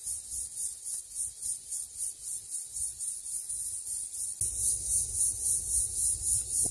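Insects buzzing in a high, pulsing chorus, about three pulses a second. A low rumble comes in about two-thirds of the way through.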